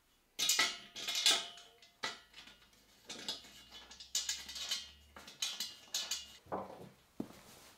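Steel frame parts of a router table clinking and knocking as they are handled and bolted together, a dozen or so irregular metal strikes, some ringing briefly.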